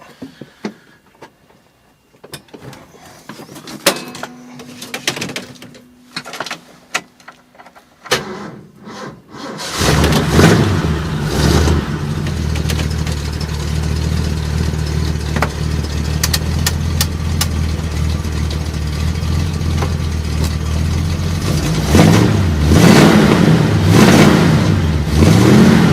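A 1965 Ford Galaxie's engine cold-starting after sitting overnight, running on a freshly replaced HEI ignition module. There are a few clicks and knocks at first. About ten seconds in the engine catches and settles into a steady idle. Near the end it is revved in a few quick blips.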